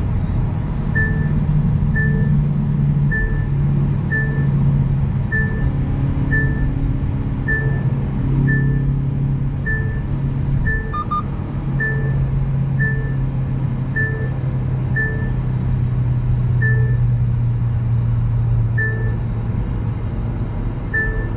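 Hyundai Veloster N's cabin at a steady highway cruise: a continuous low engine and road drone, with a short electronic beep repeating about once a second, spacing out to about every two seconds near the end.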